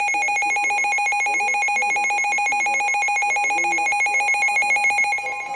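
Emergency Alert System broadcast alert tone: a loud, steady electronic tone with a rapid trill like a ringing phone. A second tone joins it about half a second in.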